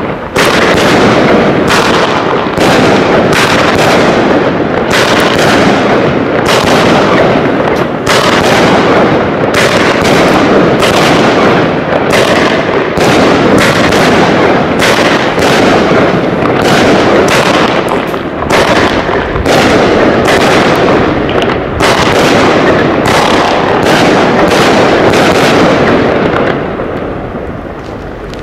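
Comet Power Lord 30 mm fireworks battery firing its 19 shots: a rapid, unbroken series of launch reports and aerial bursts, loud throughout, thinning out and fading over the last couple of seconds as the cake burns out.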